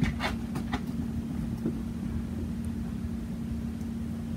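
A steady low hum with a constant tone and a rumble underneath.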